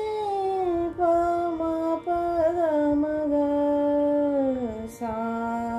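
A woman's voice singing the slow descent of raga Bihag in Indian classical style: sustained notes about a second each, stepping downward and gliding between notes (meend), over a steady drone.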